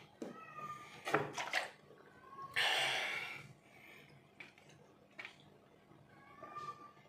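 Someone chugging soda from a plastic bottle: gulps and gurgling from the bottle with short squeaky pitched noises, then a loud breathy gasp or rush of air in the middle before the drinking goes on.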